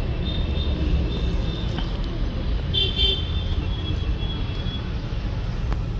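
Steady low rumble of outdoor street noise, with faint thin high-pitched chirps near the start and again around three seconds in.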